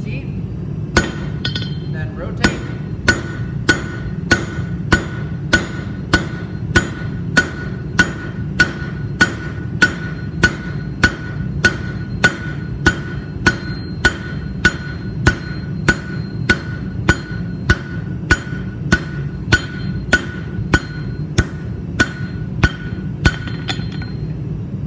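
Hand hammer striking a red-hot mild steel square bar on an anvil, drawing out a square taper. The blows come in a steady rhythm of roughly three every two seconds, each with a short metallic ring, over a steady low hum.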